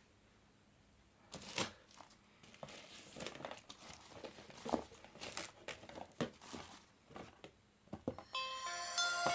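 Crinkling, rustling and tearing of packaging being handled, in irregular bursts with sharp crackles. About a second before the end a short bright tune starts playing.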